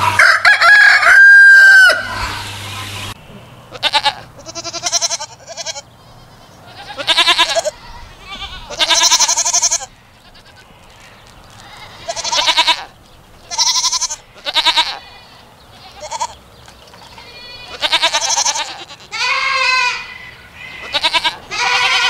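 A rooster crowing once, loudly. Then goats bleating repeatedly, a dozen or so short bleats with pauses between them.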